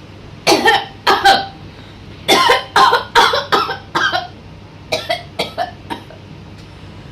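A person coughing repeatedly in short, loud bursts: a few coughs, then a longer run of about half a dozen, then another bout of four or five.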